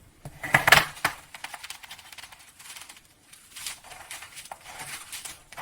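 Irregular light clicks and knocks, with a cluster of sharper ones about half a second to a second in.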